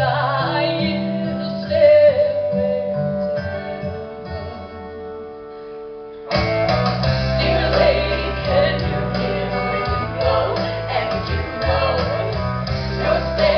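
Live rock show music: singing over guitar and sustained chords, softer at first. About six seconds in the full band comes in suddenly with heavy bass and drums, and the music gets louder.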